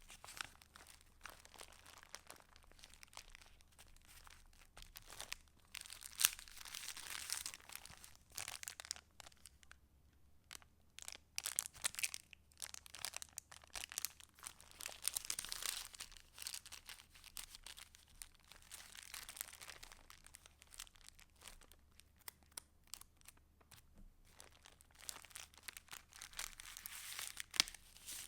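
Pages of a handmade paper junk journal being turned and handled: paper rustling and crinkling in irregular spells, with short quiet gaps between.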